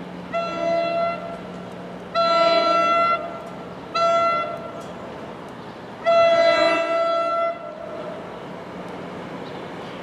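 An approaching NJ Transit commuter train's chord horn sounding the grade-crossing signal: two long blasts, one short, then a final longer one.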